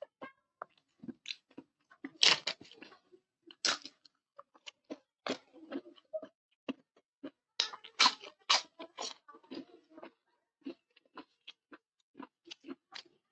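A person chewing and crunching food close to the microphone, with many short, irregular crunches and mouth clicks. The louder bursts come about two seconds in, near four seconds, and around eight to nine seconds in.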